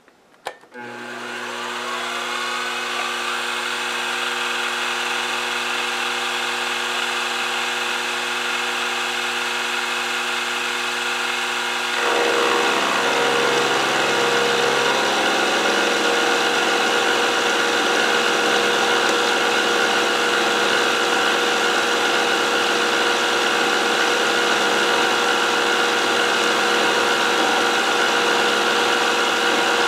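Benchtop milling machine switched on with a click, its spindle motor spinning up to a steady whine. About twelve seconds in the sound gets louder and rougher as the half-inch carbide end mill cuts into the workpiece on a light 15-thou conventional milling pass.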